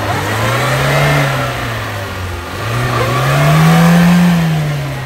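Chevrolet Niva's engine revved twice under load in deep mud, each rev rising and falling in pitch; the second, peaking about four seconds in, is longer and higher.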